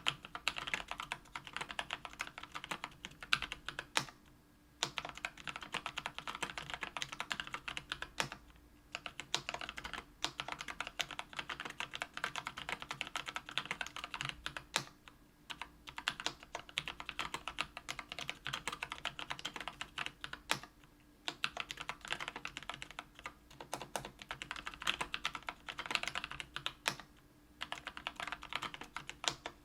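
Steady fast typing on a KBDfans Tofu 65% aluminium-case mechanical keyboard with an aluminium plate and lubed Kailh Brown 50 g tactile switches: a dense run of keystroke clacks broken by a few brief pauses.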